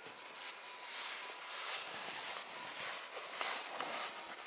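Continuous rustling with scattered light crackles, a few sharper ones about three and a half seconds in.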